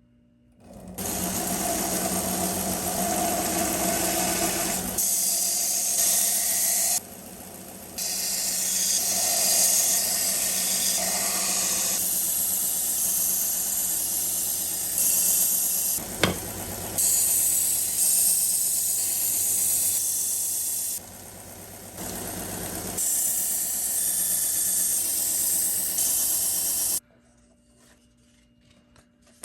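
A powered sharpening grinder runs with a steady hum while a Damascus knife blade is ground against the abrasive, giving a loud hissing grind. The grind eases off twice as the blade is lifted between passes, and the noise cuts off near the end.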